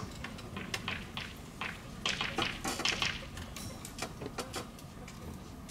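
Chalk writing on a blackboard: a run of sharp taps and short scratchy strokes, thickest from about two to three and a half seconds in.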